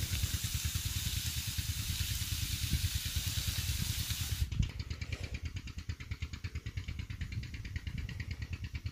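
A keema hissing and sizzling on a hot iron tawa, cutting off abruptly about four and a half seconds in. Under it an engine runs steadily with a low, rapid thumping.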